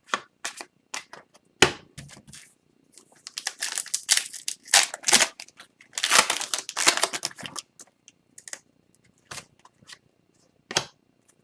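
Hockey card packs being opened and gone through by hand: wrappers tearing and crinkling, and cards sliding and flicking against each other in quick clicks and rustles, busiest in two stretches in the middle.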